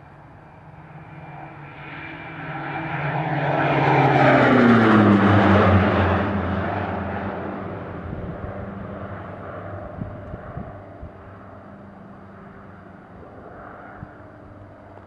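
Diamond DA62's two 180-horsepower turbocharged diesel engines and propellers in a low fly-by: the drone grows louder, is loudest about four to six seconds in with its pitch dropping as the plane passes, then fades away as it climbs out.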